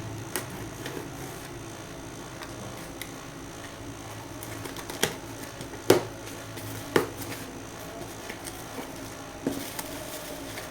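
Scattered sharp clicks and taps from objects being handled, a few seconds apart and loudest about six seconds in, over a steady low hum.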